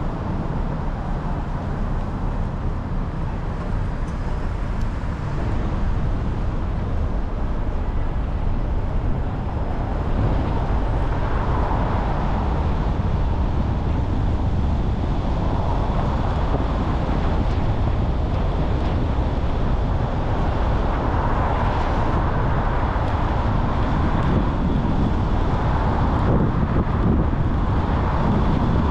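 Car driving on rain-wet city streets: steady road noise with a low rumble and the hiss of tyres on wet pavement, swelling now and then.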